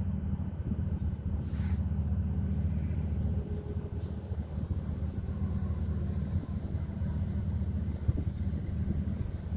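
Steady low drone of a river cruise ship's engines while under way.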